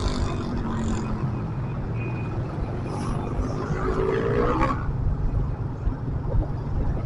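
Vehicle engines in traffic, their pitch rising and falling as they rev, over a steady low road rumble.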